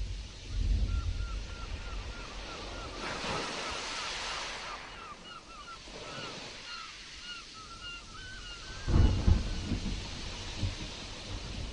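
Stormy sea surf washing and breaking, with wind buffeting the microphone in low rumbling gusts about a second in and again near the end. A run of short, high, repeated chirps sounds over the surf through the middle.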